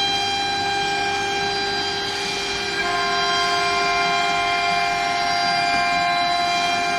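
CNC router spindle whining steadily at high speed as it cuts aluminium composite panel, with a hiss of cutting noise under it; the mix of whining tones shifts about three seconds in as the machine's motion changes.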